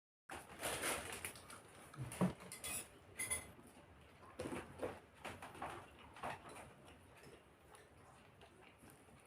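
Irregular clinks and scrapes of eating utensils on a plate during a meal, busiest in the first half and sharpest about two seconds in.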